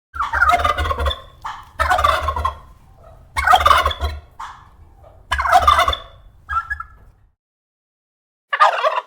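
Male turkey (tom) gobbling: four loud gobbles in a row, about a second long each, with shorter calls between them, then a pause and another gobble near the end.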